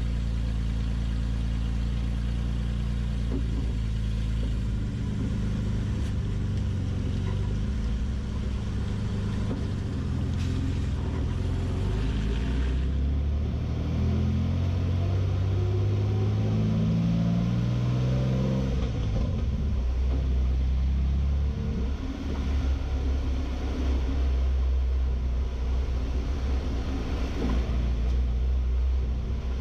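2022 Toyota Tacoma's V6 engine and exhaust running with a low, steady rumble; about halfway through the pitch climbs for several seconds as it revs or accelerates, then drops suddenly and settles back to a steady run.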